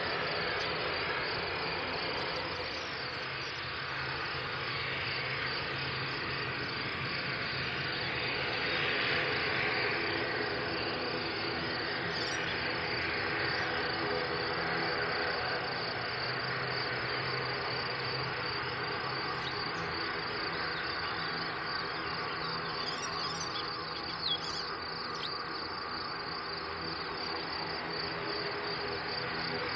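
Twin Pratt & Whitney PW127 turboprops of an ATR 72-212A running at low power as it rolls out and taxis off the runway after landing. It is a steady distant drone with a low propeller hum and a high whine. A few short high chirps sound over it.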